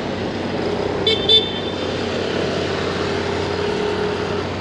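Road traffic at a busy city junction: a steady vehicle engine tone that falls slightly and fades near the end, with two short high-pitched beeps just over a second in.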